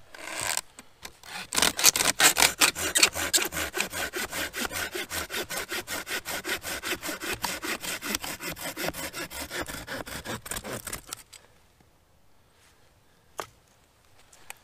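Hand saw cutting through a dead, barkless branch: quick, even back-and-forth strokes, several a second, that stop about eleven seconds in. A single sharp knock follows near the end.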